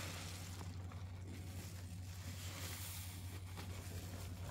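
Soap-soaked sponge being squeezed: wet squishing and crackling of dish-soap lather and crumbled Ivory bar soap, in swells, over a steady low hum.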